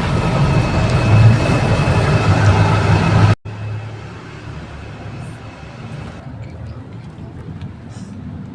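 Steady car noise, a low hum with a faint steady whine above it. About three seconds in it cuts off abruptly and gives way to quieter, even road noise.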